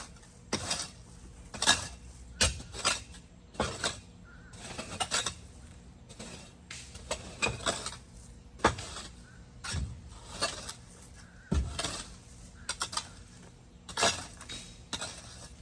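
A metal garden tool repeatedly striking and scraping, making irregular clinking knocks about once a second.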